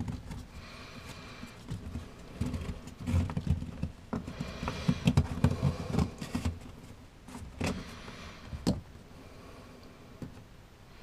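Hands moving plastic hoses and wiring around a water pump in a cramped floor compartment: irregular rustling, knocks and clicks, busiest in the middle, with one sharper click later on.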